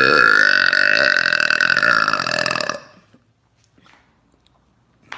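A young woman's single long, loud burp, held at a fairly steady pitch for nearly three seconds before it stops.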